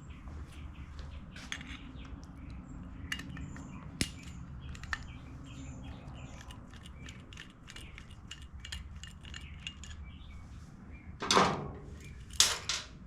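Small metal hand tools and carburetor parts clinking and tapping on a workbench in scattered light clicks over a low steady hum, with two louder brief knocks near the end.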